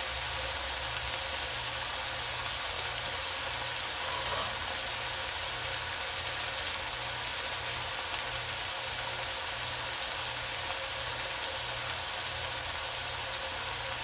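Chopped tomatoes, onion, garlic and ginger sizzling gently in oil in a wok, a steady even hiss, with a low hum that pulses slowly underneath.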